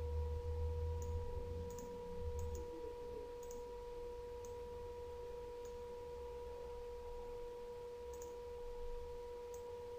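Faint computer mouse clicks, about ten scattered through, over a steady whining tone in the recording's background and a low rumble in the first couple of seconds.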